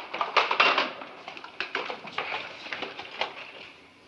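A rapid, irregular series of knocks and clattering impacts, loudest in the first second and thinning out toward the end.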